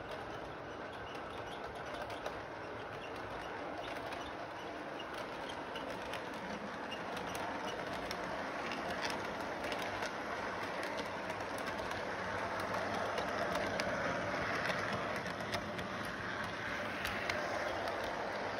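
Electric model train running on its track: a steady whirr of motor and wheels with scattered small clicks, slowly getting louder as the locomotive and boxcars come past.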